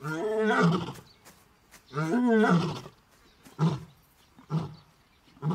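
Lioness roaring: two long moaning roars, then a run of short grunts about one a second as the roaring bout winds down.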